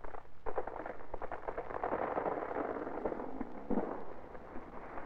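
A felled tree crashing down: a dense run of cracking and snapping wood and rushing branches, with a heavier crack about three and a half seconds in. It is heard dull and muffled through an old film soundtrack.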